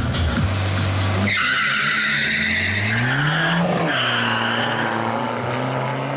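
A Seat Leon 1.9 TDI diesel and a BMW E46 petrol car launching side by side from a standing start about a second in, tyres squealing. The engines rise steadily in pitch, drop at a gear change a little before the four-second mark, then climb again as the cars pull away.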